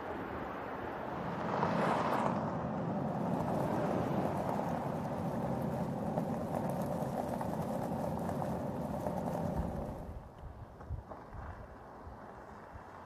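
Audi Q3 SUV driving, a steady tyre and engine noise that swells about two seconds in and drops away about ten seconds in.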